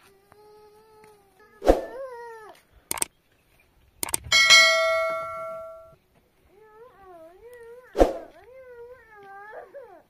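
High, drawn-out wavering cries. Two sharp knocks come about two seconds in and near the end. A metallic clang about four seconds in rings for nearly two seconds.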